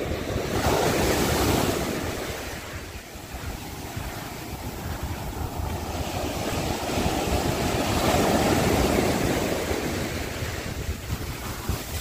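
Sea surf washing up a sandy beach in two swells, one about a second in and another around eight seconds in, each building and then draining away, with wind buffeting the microphone.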